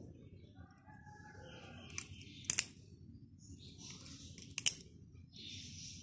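Metal butterfly knife (balisong) being handled, its handles clacking against each other and the blade tang: a few sharp metallic clicks, with two close pairs about two and a half and four and a half seconds in.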